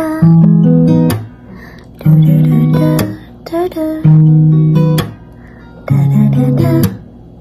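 Background music: acoustic guitar strumming chords in bursts of about a second, each ending on a sharp stroke.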